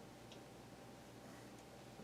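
Near silence: room tone with a faint steady hum and one faint small click about a third of a second in.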